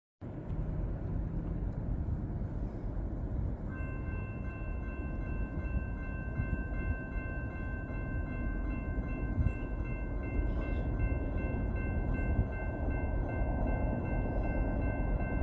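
Approaching Norfolk Southern freight train heard from a distance as a steady low rumble. About four seconds in, a steady chord of several high tones sets in and holds without a break.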